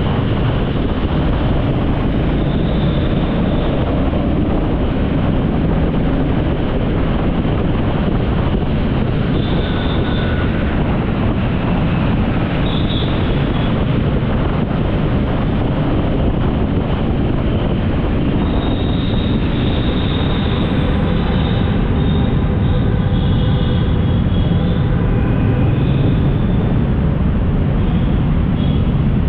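Steady, loud rushing noise of a moving vehicle with wind on the microphone, unchanging throughout.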